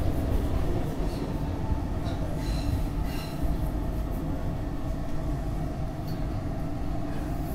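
SEPTA Market-Frankford Line subway train pulling into a station, heard from inside the car: a steady rumble of wheels on rail and traction equipment as the train slows.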